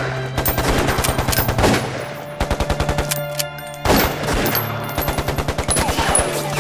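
Rapid gunfire in long bursts of about ten shots a second, with a break and a loud hit near the middle, over a steady low music drone.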